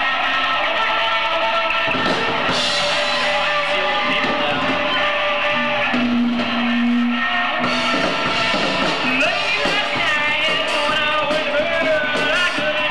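Live rock band playing: electric guitars and a drum kit.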